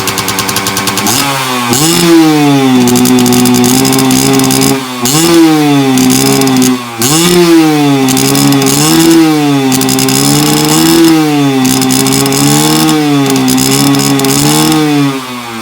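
Motorcycle engine idling, then revved repeatedly from about a second in, its pitch rising and falling every second or two. It drops back toward idle at the end, as in a stationary exhaust-noise test.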